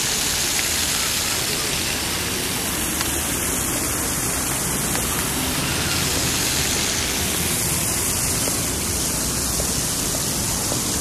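Fountain with a ring of water jets splashing into its basin: a steady rushing hiss of falling water.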